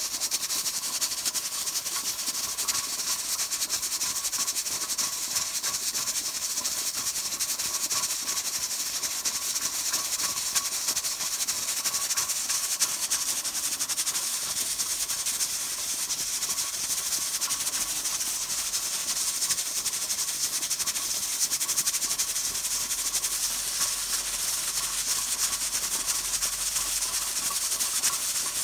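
Presto pressure cooker's adjustable regulator weight jiggling on its vent pipe, rattling over a steady hiss of escaping steam as it regulates the pressure at about 15 psi.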